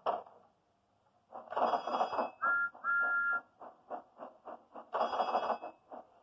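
Steam-train sound effects: a steam engine chuffing at about four beats a second, with two short toots of a two-note steam whistle. Heard through a TV speaker.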